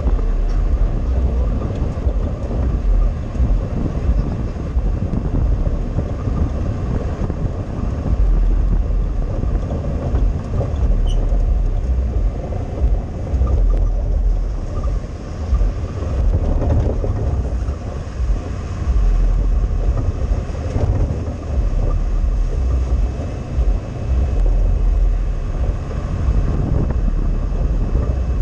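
Open off-road vehicle driving along a rough dirt track: its engine runs under a low, uneven rumble of road noise and air buffeting the mounted camera.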